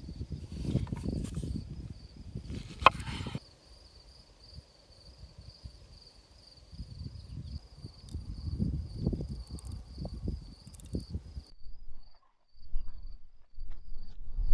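Crickets chirping steadily, over low grinding and knocking of a mortar and pestle crushing black pepper and salt for the first few seconds, with a sharp click about three seconds in. Quieter low handling noises follow, and the sound drops away abruptly near the end.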